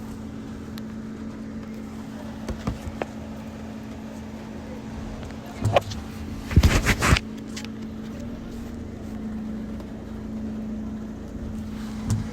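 Rain falling, over a steady low hum. A short cluster of loud knocks comes about six to seven seconds in.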